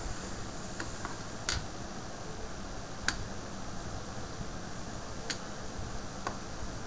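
A handful of small, sharp, scattered clicks of a thin metal hand tool against a mobile phone's circuit board and parts during disassembly, over a steady background hiss.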